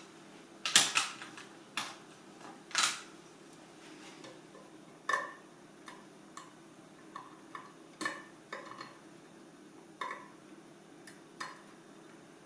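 Light metallic clicks and taps of a Phillips screwdriver working on small screws and parts, irregularly spaced. A few louder knocks come in the first three seconds, then lighter ticks every half second or so.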